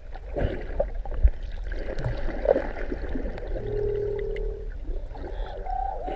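Underwater recording of minke whales: steady water rumble with scattered clicks and knocks, the sharpest a little over a second in, and a held whale tone lasting about a second from about three and a half seconds in, then a short higher tone near the end.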